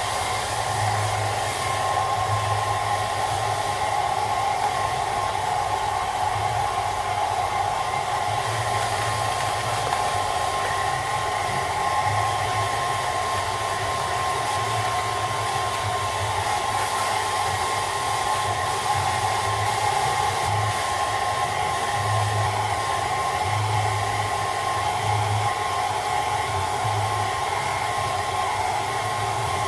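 Hairdryer running steadily with its motor whine and rush of air, a continuous tone over a steady hum with a low flutter.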